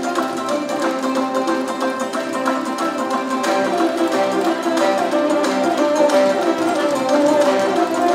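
Traditional Kazakh folk ensemble playing: plucked long-necked lutes and a table zither, with held notes sounding under the plucked melody.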